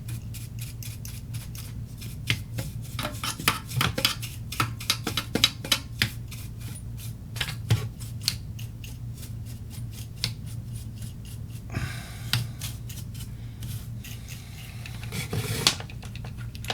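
Irregular clicks, taps and scraping of small parts and tools being handled at a workbench, thickest in the first half, with a short scrape partway through and another near the end, over a steady low hum.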